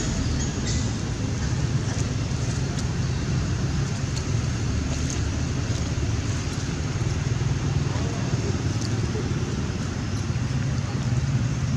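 Steady low rumbling background noise with an even hiss above it and no breaks.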